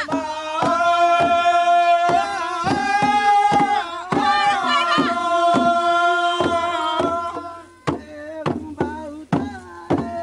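A group of voices singing long, held notes that slide between pitches, over a drum beating about twice a second. The singing drops away near the end while the drum strokes carry on.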